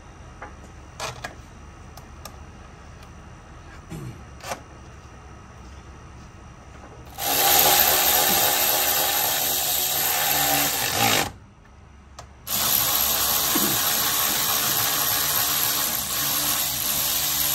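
Cordless power tool running bolts in the Jeep's 3.6 L Pentastar engine bay: two long steady runs, about four seconds and then about six, with a short pause between. A few light clicks of parts and tools come before the first run.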